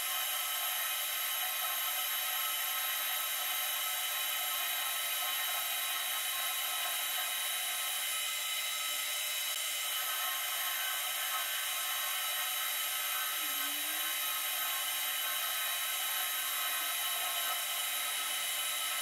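Metal lathe turning a steel shaft with a carbide insert cutting tool: a steady, high-pitched machine whine with the hiss of the cut, unchanging throughout.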